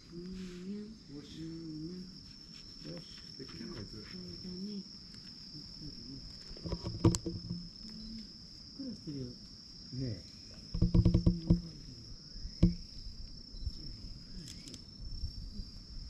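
Insects buzzing steadily at one high pitch throughout, over low, wavering voice-like sounds and a few loud knocks and rustles of handling near the middle.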